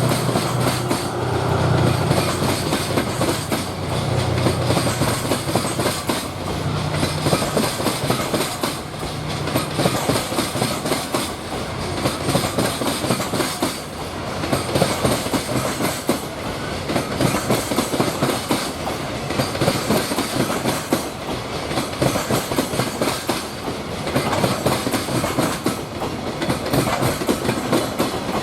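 Freight train passing close by: a low hum early on, then a long run of wagon wheels clattering rhythmically over the rail joints.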